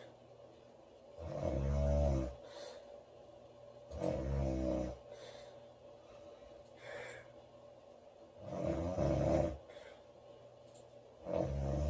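A woman snoring loudly: four low snores a few seconds apart, the last starting just before the end, with a fainter breath between the second and third.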